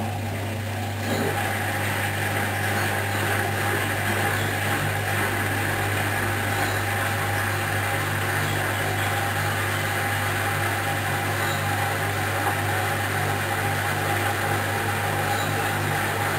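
Hoover washing machine running an intermediate spin at 800 rpm: a steady motor hum with the drum's rushing noise, stepping up slightly in level about a second in.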